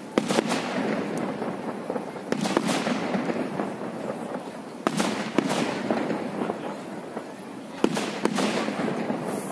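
Aerial firework shells bursting in a display: sharp bangs, mostly in pairs, every two to three seconds, over a steady rush of noise.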